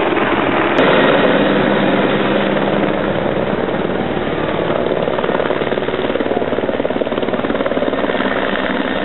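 Helicopter flying low overhead and then pulling away, its rotor beating rapidly over a steady engine whine. The sound cuts in abruptly just under a second in and grows gradually fainter toward the end.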